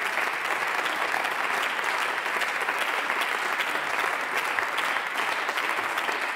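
Applause from members of parliament: many hands clapping at a steady level.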